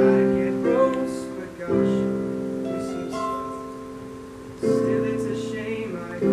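Piano accompaniment playing slow sustained chords, each struck and left to fade before the next.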